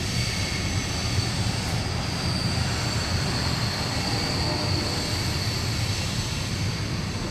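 Steady loud rumbling noise, heaviest in the low end, with a faint high whine held throughout.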